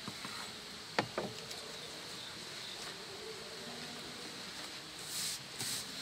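A sharp knock about a second in, quickly followed by a second lighter one, then three short scraping sounds near the end, over a faint steady high-pitched hum.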